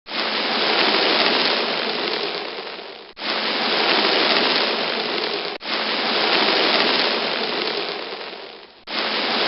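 Sandstorm sound effect: a dense, steady hiss of wind-driven sand. It comes in spliced segments that fade and then cut back in abruptly, about three seconds in, about five and a half seconds in, and near the end.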